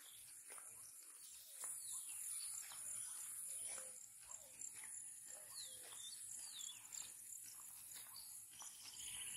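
Faint outdoor ambience: a few short sliding chirps of birds calling, mostly around the middle, over a steady high hiss, with scattered light clicks.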